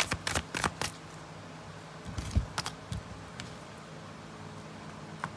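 Tarot cards being shuffled: a quick run of sharp card clicks in the first second, a few scattered clicks and a soft thump around two seconds in, then a faint steady room hum.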